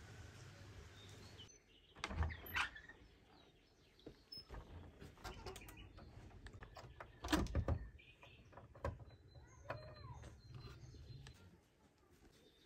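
A painted wooden door being unlatched and pushed open: a run of clicks, knocks and rattles from the latch and handle, loudest about two and again about seven seconds in. Birds chirp faintly in the background.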